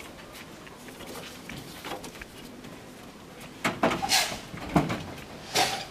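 A baby Japanese macaque clambering up a wooden hut wall: a run of knocks and scraping rustles begins about halfway through, the loudest near the end.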